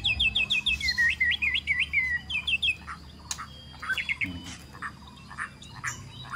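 Fledgling white-rumped shama (murai batu) chirping: quick runs of short, high rising-and-falling chirps for about the first three seconds, then a few scattered chirps and short clicks.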